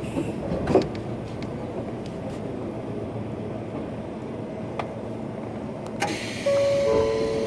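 Running noise inside a Sotetsu New 7000 series electric train car with a Hitachi GTO inverter: steady rail and wheel noise with a couple of short clicks. About six and a half seconds in, steady humming tones from the inverter and traction motors start up and the noise gets louder.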